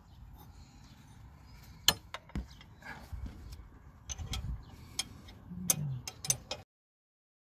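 Metal spanner clicking and clinking as it is worked on the auxiliary belt tensioner's adjusting bolt, over rustling of a hand among hoses; a handful of sharp clicks, and the sound cuts off abruptly near the end.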